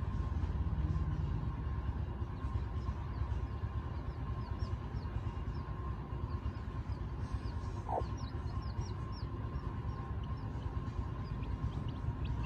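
Young chicks peeping: short, high, falling chirps, scattered at first and coming in quicker runs about seven seconds in and again near the end, over a steady low rumble.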